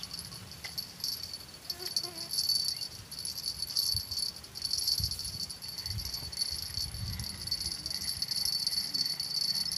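Steady high-pitched buzzing of insects, swelling and fading slightly, over a low rumble that grows in the second half.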